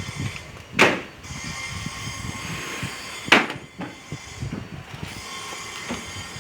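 Two sharp knocks about two and a half seconds apart, with a low irregular clatter between them.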